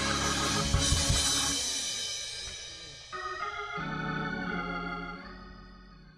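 A gospel song ending. The full band and singing stop with a few drum hits about a second in and die away. Sustained keyboard chords, organ-like, come in about three seconds in and fade out near the end.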